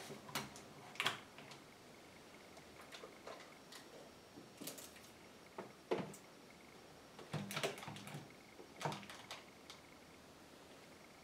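Scattered faint clicks and knocks of small objects being handled: round dial thermometers set against a wall and small plastic mirror stands moved on a table, about half a dozen knocks in all, the loudest about six seconds in.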